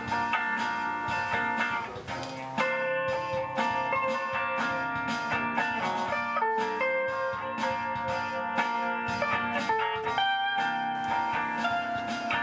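Background music: guitar-led instrumental with plucked notes over a steady rhythm.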